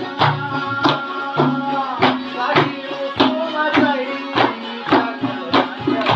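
Chitrali sitars, long-necked plucked lutes, playing Khowar folk music with a steady percussive beat about every 0.6 s. A man sings a bending melody over them.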